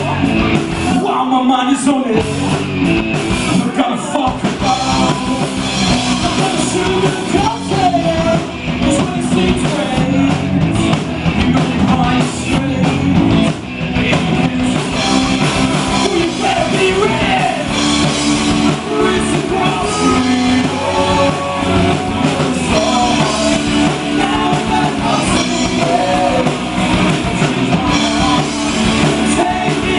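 Live rock band playing a song, with drums, electric guitar and a lead singer.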